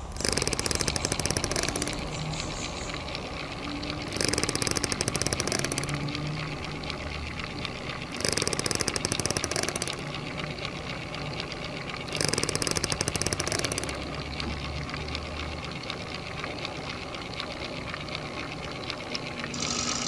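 End-credits sound bed: a rapid ticking rattle in bursts of about two seconds, repeating every four seconds, over a steady low drone with a thin held tone.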